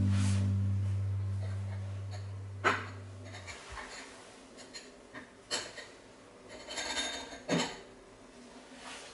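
Ceramic plates and bowls being set down and stacked on a cabinet shelf: a few separate clinks and knocks, with a cluster near the end. Under the first few clinks, background music holds a low note and fades out.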